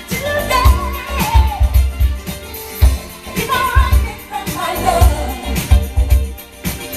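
A pop song with a singer over a strong, punchy bass beat, played back through JBL L100 loudspeakers driven by a Luxman amplifier.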